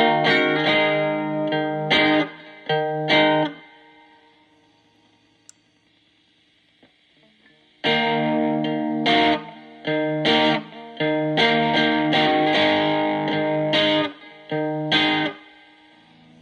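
Electric guitar played through a breadboarded Distortion+ overdrive circuit whose clipping diodes are swapped in from a diode substitution box. Notes are struck in two short rhythmic phrases and ring out, with a pause of about four seconds between them where the sound dies away.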